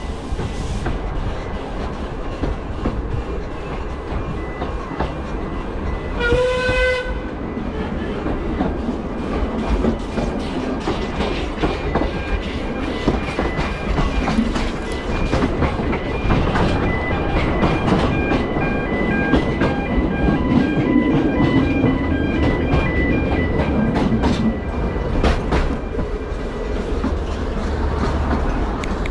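Narrow-gauge steam train heard from an open carriage while running: a steady rumble with the clicks of wheels over rail joints. About six seconds in, the locomotive's steam whistle gives one short blast.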